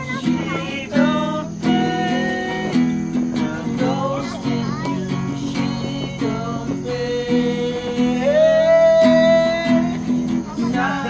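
Live acoustic guitar strummed, with a voice singing a song over it. Two long held sung notes, the second higher, come in the second half.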